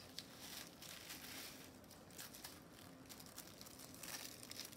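Faint crinkling and rustling of plastic packaging wrap being handled and pulled at, a little livelier near the end.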